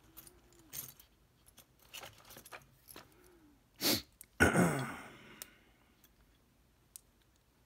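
Small screwdriver picking and prying at a brass C-clip on a lock cylinder: light metal clicks and scrapes. One loud, sudden sound about four and a half seconds in.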